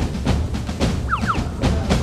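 Background music with a steady percussive drum beat, and a few short falling-pitch comic sound effects about a second in and again near the end.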